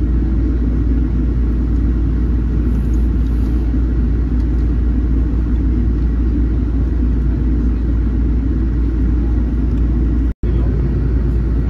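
Steady low rumble of a Boeing 787 heard from inside the cabin as it moves on the ground, engine and airframe noise blended together. The sound cuts out completely for an instant about ten seconds in.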